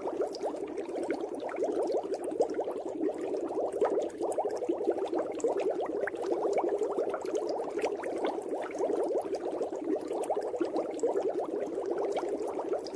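Continuous bubbling of water heard underwater, a dense stream of small bubbles with no break.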